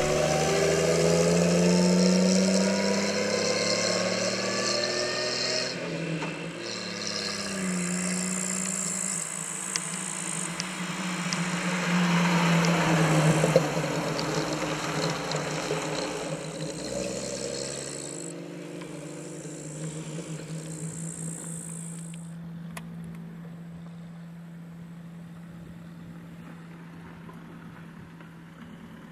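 1934 Sunbeam Speed 20 Monte Carlo's 2.9-litre straight-six engine pulling the car along: its note rises in pitch as it accelerates in the first seconds, then changes with speed and dies away as the car drives off into the distance.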